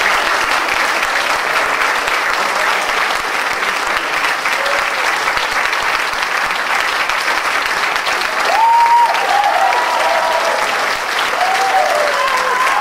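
Theatre audience applauding steadily, with a few short calls from the crowd rising over the clapping past the middle and again near the end.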